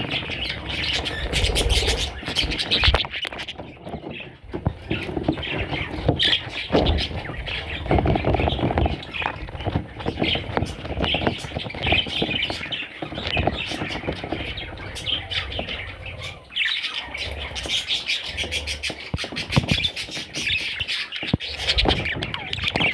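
Pet budgerigars chattering and squawking continuously, with scattered clicks and knocks.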